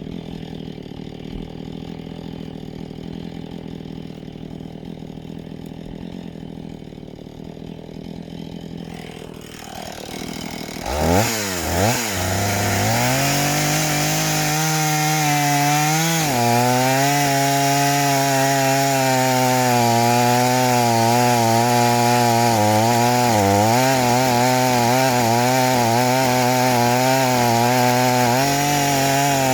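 Chainsaw idling steadily for about ten seconds, then revved twice and held at full throttle, cutting into a fresh log. The engine pitch dips and recovers as the chain bites into the wood.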